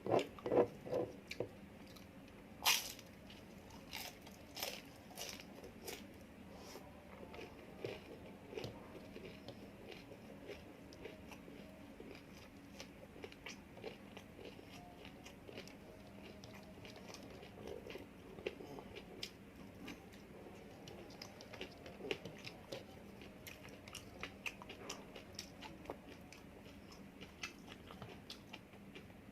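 A person eating close to the microphone: bites and chewing with crunching and small wet clicks, a few louder bites in the first few seconds.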